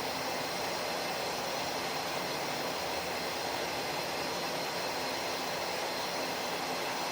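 Steady rushing background noise with a faint high whine, unchanging throughout.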